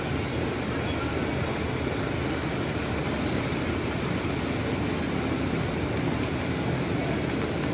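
Heavy rain falling steadily onto a wet, puddled street, an even, unbroken hiss.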